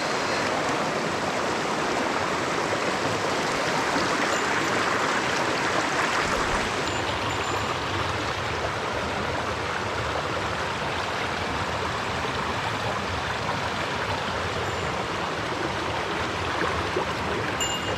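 Small mountain stream running steadily over rocks.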